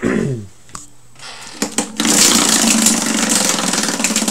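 Tabletop prize wheel spun by hand, its pointer clicking rapidly over the pegs. The fast, dense clicking starts about halfway in, after a few knocks as the wheel is handled.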